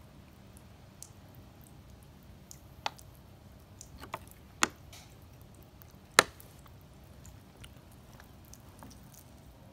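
Thin plastic water bottle crackling as it is squeezed to squirt water from its pierced cap: a handful of sharp, separate pops, the loudest about six seconds in.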